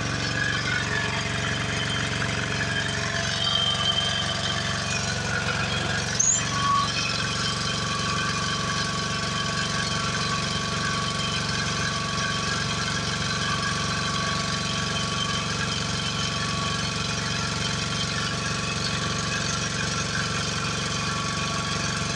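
An engine running steadily at idle, with one brief sharp sound about six seconds in.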